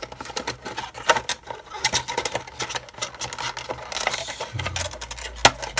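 A flashlight's retail box being opened and handled: irregular scraping, rustling and clicks of packaging, with one sharp knock near the end.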